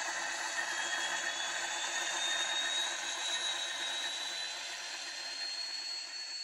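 N-scale model M62 diesel locomotive's DCC sound decoder playing the engine running sound through its tiny speaker, mixed with the model running on the track: a steady, hissy drone with a thin whine that slowly rises in pitch. It eases off slightly near the end as the locomotive moves away.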